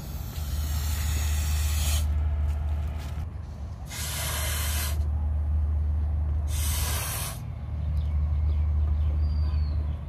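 A rubber balloon being blown up by mouth: three long breathy blows, the first about two seconds and the next two about a second each, with short pauses for breath between them. A steady low rumble runs underneath.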